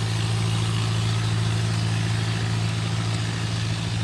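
Boat engine running with a steady low hum as a boat passes on the river.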